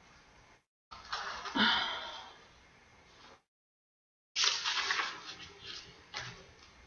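Paper rustling and sliding as a printed photo sheet is moved about and handled on a journal page, in two short spells with a few light ticks.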